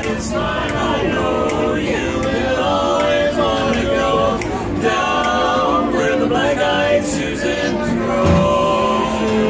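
Barbershop quartet of four male voices singing a cappella in close four-part harmony, holding and changing chords.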